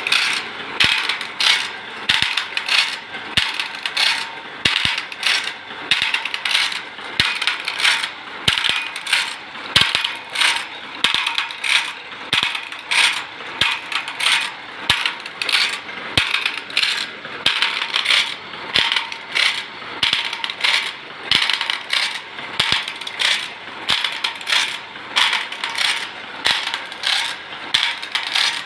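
Automatic saw-sharpening machine grinding a steel saw blade tooth by tooth. The abrasive wheel strikes each tooth with a short metallic grind, repeating in a steady fast rhythm with mechanical clicking.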